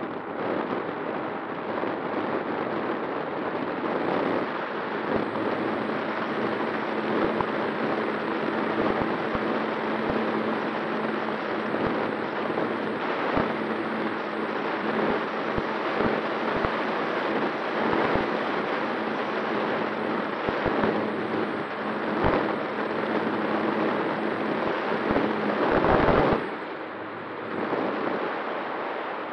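Wind rushing over the onboard camera's microphone on a Skua FPV flying wing in flight, with the steady hum of its electric motor and propeller underneath and frequent crackling buffets. Near the end a loud gust surges, then the motor hum stops and the noise drops.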